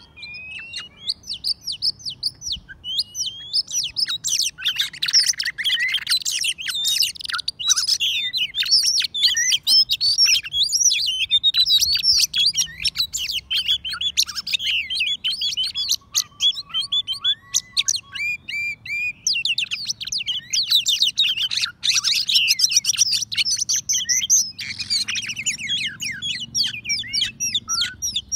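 Oriental magpie-robin song: a loud, dense, unbroken stream of quick varied whistles, chirps and trills. This is the excited territorial song of magpie-robins at a decoy trap, with a wild bird drawn in to the caged one.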